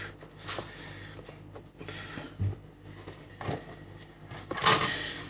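Small clicks, taps and handling noises from close-up work on the tablet's speaker wiring, with a short hiss about four and a half seconds in.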